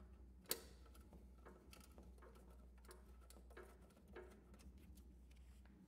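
Faint clicks and light taps of a cover flap being pressed into place on a home battery storage unit's housing, with one sharper click about half a second in.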